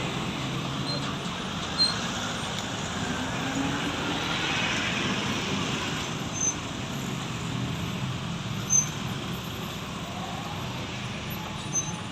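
Road traffic passing: a steady wash of engine and tyre noise, with a few brief sharp clicks.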